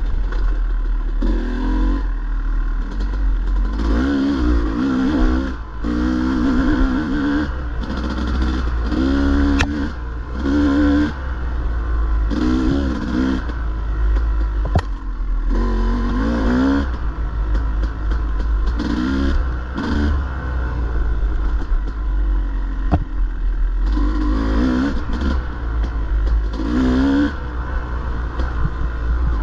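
Dirt bike engine revving up and dropping back in short, irregular bursts every second or two, the throttle worked on and off through the enduro course. A few sharp knocks and clatter are heard, with a steady low rumble underneath.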